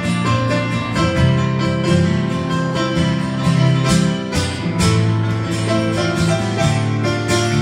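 Live instrumental music played on a Korg stage keyboard: held notes and chords changing every second or so, with a plucked, guitar-like tone.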